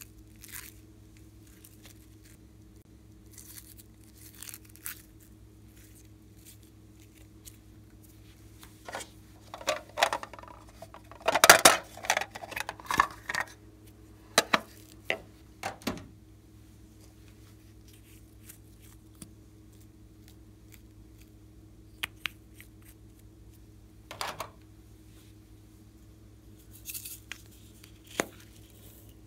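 Glossy glitter slime being peeled and handled over a glass dish, with sticky tearing crackles and clicks of small plastic containers. A dense run of crackling comes about ten seconds in, and a few separate ticks follow later.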